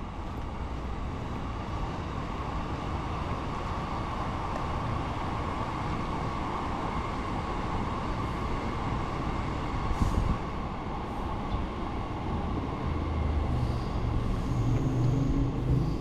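Steady rumble of vehicle noise that slowly grows louder, with a single knock about ten seconds in and a low hum joining near the end.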